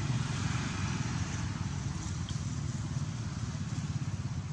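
A motor vehicle engine running steadily with a low, fluttering rumble, with a faint short high chirp about two seconds in.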